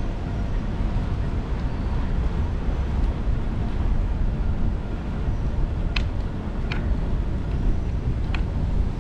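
Steady low rumble of a bicycle ride on a GoPro, mostly wind buffeting the microphone, with three short sharp clicks in the second half.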